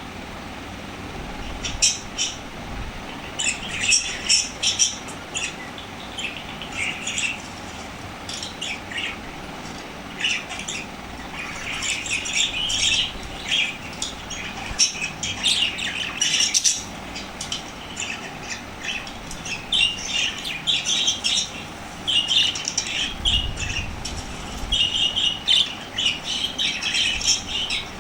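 Small parrots chirping and squawking, many short high calls in quick clusters.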